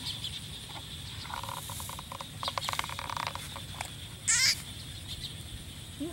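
Wire fan guard clicking and rattling as it is handled, for a couple of seconds. About four seconds in comes a short, loud, warbling bird call, the loudest sound here.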